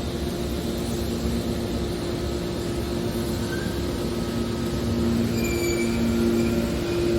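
Hydraulic scrap metal baler running: a steady machine noise with a continuous low hum, joined by a second hum that comes and goes.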